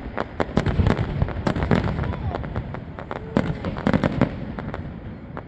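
Aerial fireworks going off in quick, irregular succession: many sharp bangs and crackles overlapping.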